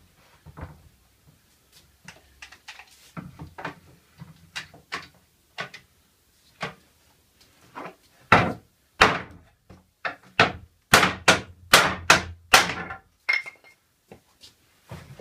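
Wooden pallet slats knocked and clattering as they are handled on a workbench, then a run of about a dozen sharp hammer blows on wood, roughly two a second, starting about halfway through.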